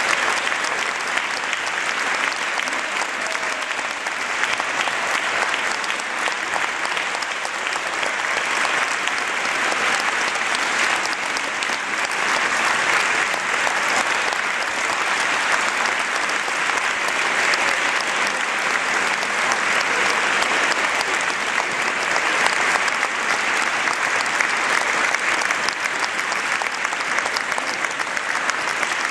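Concert audience applauding steadily, a dense, even clapping that neither builds nor dies away.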